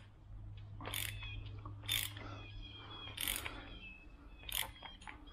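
Sharp metal clicks and scrapes, about one a second, as the fork cap is unscrewed from a Suzuki DR650 front fork tube.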